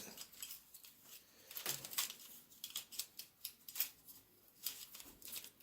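Plastic clicking and clacking of a YuLong V2 magnetic Pyraminx being turned by hand, its layers and tips snapping through turns in quick irregular clicks. The puzzle is new and still dry, without lube.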